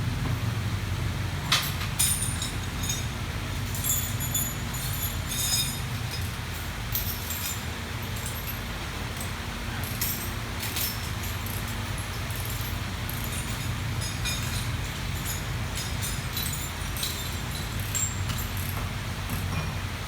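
Motorbike engine running steadily with a low hum, under repeated light metallic clinks and clicks of tools or parts being handled.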